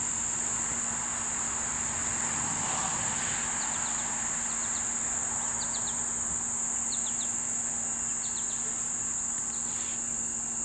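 Steady high-pitched drone of a summer insect chorus. From a few seconds in, short clipped chirps come in twos and threes about every second, over a faint steady low hum.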